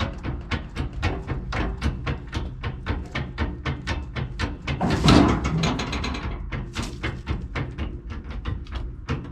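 Engine running at a steady idle with a rhythmic ticking, about five ticks a second, over a low hum. A louder clatter comes about five seconds in.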